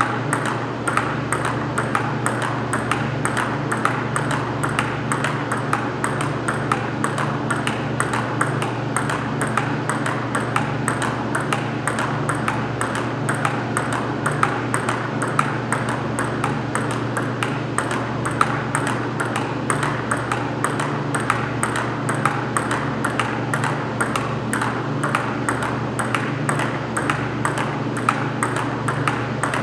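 Table tennis balls being struck back and forth: a quick, steady run of sharp clicks of ball on paddle and table, several a second.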